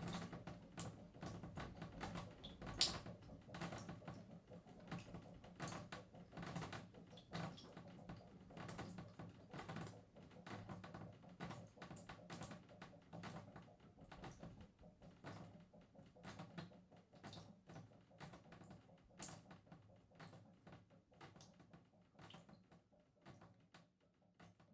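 Water dripping and splashing from a shower: dense, irregular taps of drops that thin out and grow fainter, dying away to near silence at the end.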